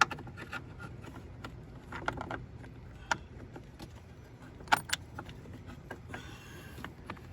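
Scattered metal clinks and taps as the loosened battery hold-down bolt and wrench are handled: a sharp click at the start, a small cluster about two seconds in, another about three seconds in, and a close pair near five seconds.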